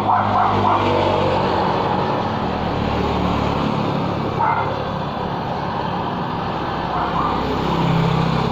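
Motorcycle engine passing on the road amid steady traffic noise, its engine note shifting about three seconds in and again near the end.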